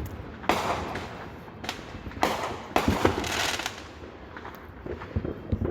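Consumer fireworks going off: a series of sharp bangs, several in the first three seconds, with crackling after some of them.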